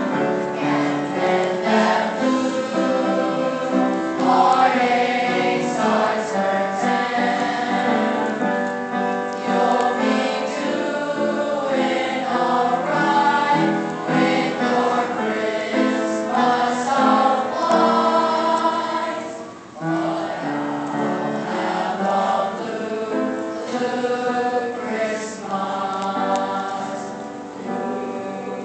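A choir singing, many voices together in harmony, with a short break between phrases about two-thirds of the way through.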